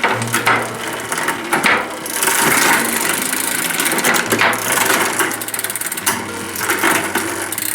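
Hands-on bicycle work: a run of sharp mechanical clicks and small knocks, thickest a couple of seconds in and again near the end.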